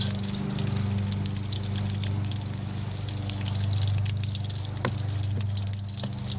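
Water gushing steadily out of an outdoor hose bib's open valve body with the stem removed, the house's supply draining through it, over a steady low hum. A few light clicks of metal parts being handled near the end.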